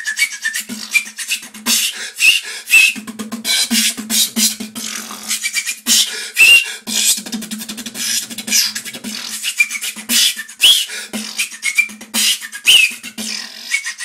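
Solo beatboxing: rapid mouth-percussion clicks and hissing hi-hat sounds over a hummed low bass note, with short whistled pitch glides, the beatboxer's water-drop and whistle effects, dropping in every second or so.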